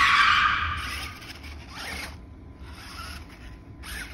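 Battery-powered Monster Jam Megalodon RC truck whirring from its electric motor and gears as it drives across dry grass. The sound is loudest in the first second, then comes in shorter bursts as the throttle goes on and off.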